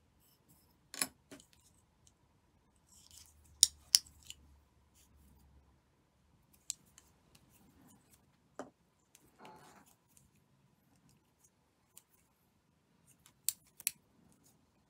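Scattered sharp little clicks and ticks from plastic tatting shuttles and a tatting hook being handled, some in quick pairs, with a brief soft rustle of thread being drawn tight about halfway through.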